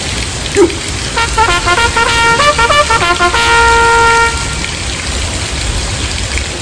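Heavy rain falling steadily. About a second in, a short electronic melody of quick beeps changing pitch plays and ends on one held tone about two-thirds of the way through. Just before it comes a brief low blip.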